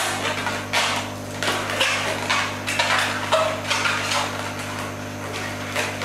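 Long latex modelling balloon being twisted and handled: rubbery rubs and squeaks in about five short bursts over the first four seconds or so, with a steady low hum underneath.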